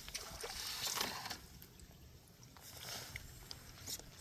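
Soft water sloshing around a small fishing boat, swelling about a second in and again near three seconds, with a few light taps and knocks.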